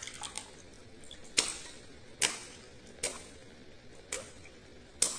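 Hands slapping a large water-filled latex balloon in shallow water: five sharp wet smacks about one a second.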